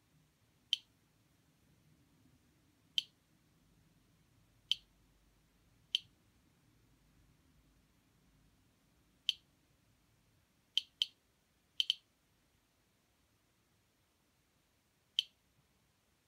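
Geiger counter board's piezo buzzer giving short, sharp bips at random intervals, about ten in sixteen seconds with a couple of quick pairs in the middle: each bip is a particle detected by its J305 Geiger–Müller tube, background counts that the builder takes for regular operation.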